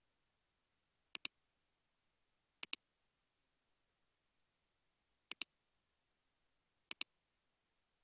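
Computer mouse button clicks: four clicks at uneven intervals, each a quick pair of sharp ticks as the button is pressed and released, over near silence.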